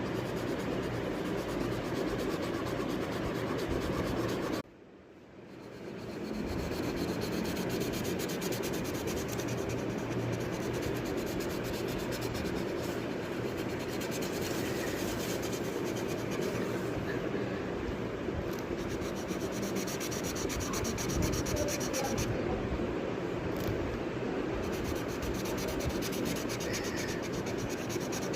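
Steady scratching and rubbing of a coloring tool on paper, in continuous coloring strokes. About five seconds in it drops out briefly, then fades back in over about a second.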